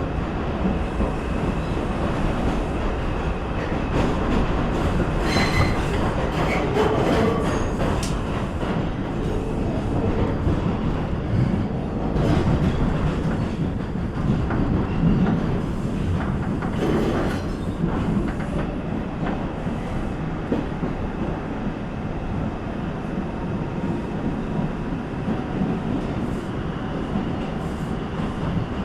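New York City subway train running between stations, heard from inside the car: a steady loud rumble of wheels on rail, with bursts of clatter over the track about five seconds in and again around sixteen seconds.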